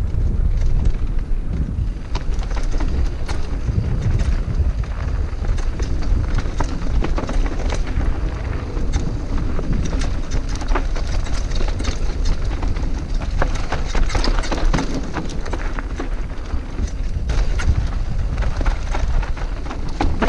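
Scott Genius full-suspension mountain bike descending a dirt singletrack: tyres rolling over dirt and rocks, with constant rattling and clicking from the chain and frame. Wind rushes over the helmet-mounted microphone in a steady low rumble.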